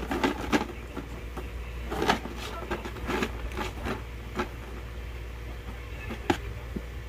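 Kitten rummaging with its head inside a cardboard Goldfish cracker carton: irregular crinkling, scraping and rattling of the carton, busiest in the first half, with one sharp click a little after six seconds.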